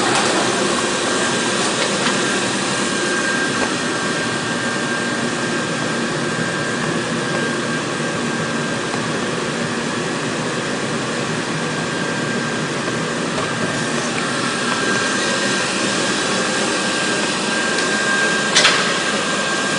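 Induction cooker running: a steady whir like a cooling fan, with a faint high whine held throughout and a single click near the end.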